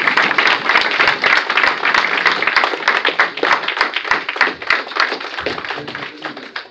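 Audience applauding, a dense patter of many hands clapping that fades out toward the end.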